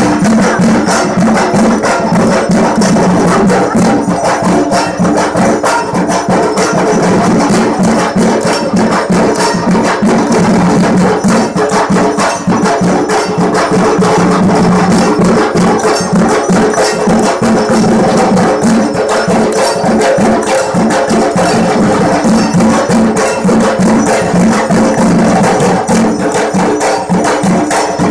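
Dhak, the large Bengali barrel drums of Durga Puja, beaten loudly in a fast, dense, unbroken rhythm, with steady ringing tones beneath the strokes.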